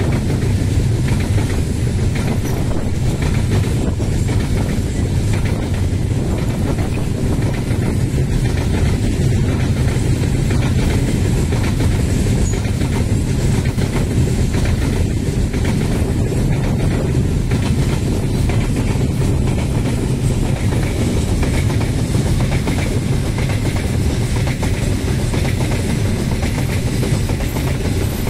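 Long freight train of open coal wagons rolling past: a steady rumble of steel wheels on the rails.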